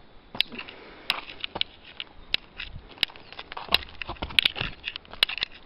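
Footsteps crunching on loose volcanic cinder and lava rock, a bit more than one step a second, each a sharp crackly crunch.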